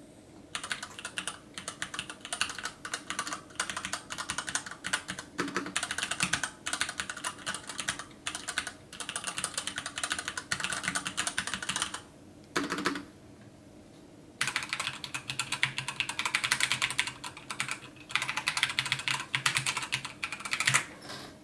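Fast typing on two mechanical keyboards with linear switches: first a Varmilo V87 with Cherry MX Black switches, then, after a pause of about two seconds a little past halfway, a Razer BlackWidow Chroma V2 with Razer Yellow switches.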